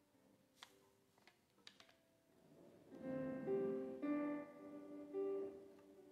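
Soft instrumental background music of held keyboard-like notes, growing louder about three seconds in; a few faint clicks in the first two seconds.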